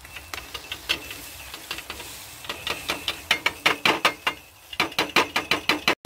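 Wire grill basket rattling and clicking against metal skewers as it is opened and the grilled meat skewers are tapped out onto a plate. A run of quick metallic clicks, sparse at first, then dense and louder from about halfway, with a brief pause near the end.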